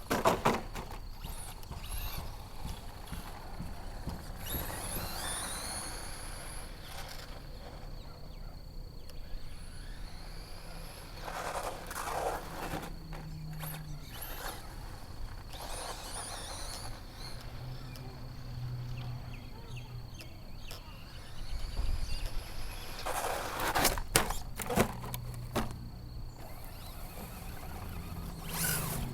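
HPI Maxxis Blitz RC truck's brushless electric motor whining up in pitch as the truck accelerates, several times over, with rough tyre noise and sharp knocks as the truck bounces and hits the ground, loudest near the end.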